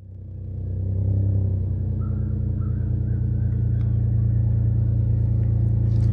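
Toyota 4Runner engine running at a steady low note with a deep rumble, fading up over the first second and then holding even.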